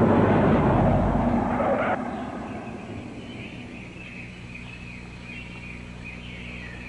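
A car passes close by, loud at first and fading over about two seconds. Birds then chirp over a quiet rural background with a steady low hum.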